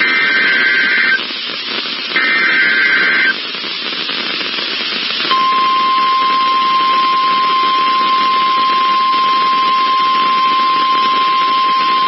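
NOAA Weather Radio alert signal received over a radio with static hiss. Two screeching digital SAME header data bursts, each about a second long and a second apart, are followed about five seconds in by the steady single-pitch 1050 Hz weather radio alert tone, which holds to the end. These are the tones that trigger weather-alert receivers for a test of the alert system.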